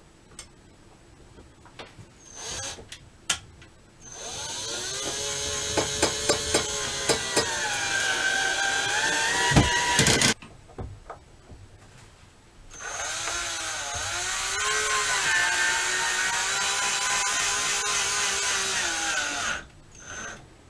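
Cordless drill driving mounting screws into the wall in two long runs of several seconds each, its motor whine dropping in pitch as it comes under load, with a quick series of sharp clicks during the first run.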